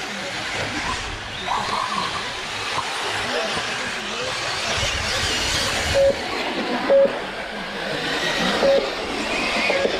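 Radio-controlled model cars racing, their motors running with a hiss and rising and falling in pitch as they pass. Four short beeps of one pitch sound in the second half, typical of a lap-timing system logging cars crossing the line.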